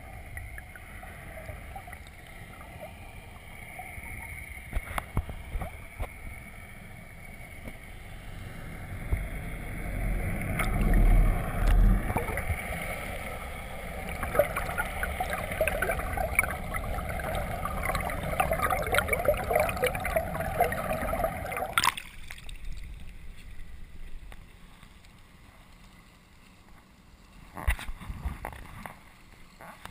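Water sloshing and gurgling around a camera held in the water, muffled as if through a waterproof housing, with heavy low thumps about ten to twelve seconds in. Busier crackling splashes follow, then the sound drops off suddenly a little past twenty seconds in as the camera surfaces.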